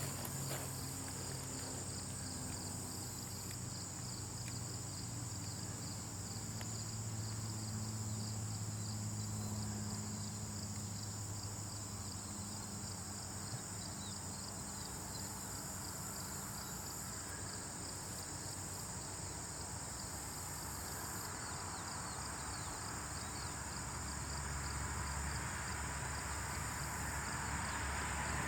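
Steady high-pitched chorus of insects with a fine, rapid ticking texture over a low hum. A broader rustling noise swells near the end.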